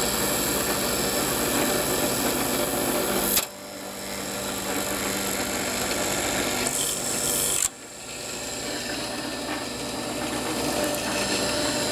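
Drill press running, its bit boring a 3/8-inch hole through PVC pipe: a steady motor hum with the noise of the cutting. The sound drops away briefly twice, about three and a half and seven and a half seconds in.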